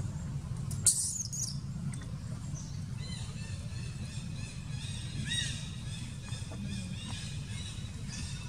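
Birds chirping and calling in high, pitched phrases over a steady low rumble, with one sharp high cry about a second in.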